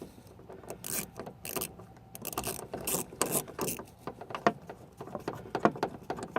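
Ratchet clicking in irregular runs of short clicks as a T40 Torx bit loosens a stock hard-top bolt on a Jeep JK.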